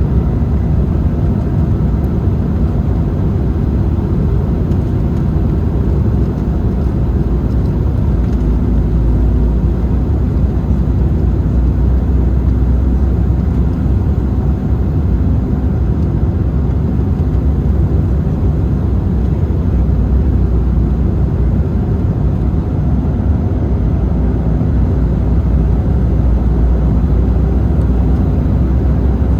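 Steady low rumble of airflow and engine noise inside the cabin of an Embraer 190 airliner in flight, heard from a window seat.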